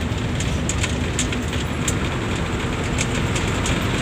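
Bus running on the road: a steady rumble of engine and road noise, with a few brief light ticks and rattles.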